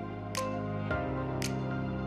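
Background music: sustained chords over a bass line, with a crisp cymbal-like hit twice and a chord change about a second in.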